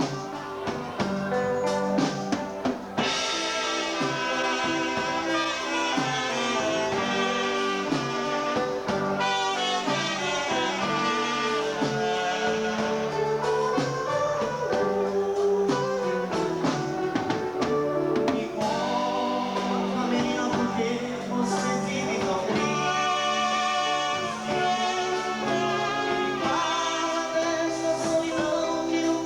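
A dance band playing a romantic ballad, with instruments and singing over a steady beat.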